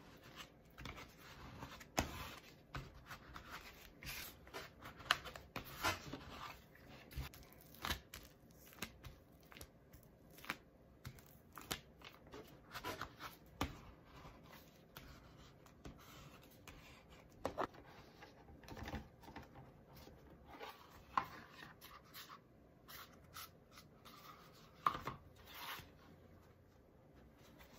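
Bookbinding folders and a hand rubbing and scraping over book cloth and binder's board, with scattered light taps and clicks as the cloth is pressed down onto the case.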